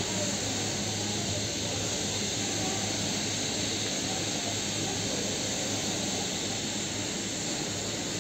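Steady outdoor hiss of city and railway background noise, with a faint low hum underneath.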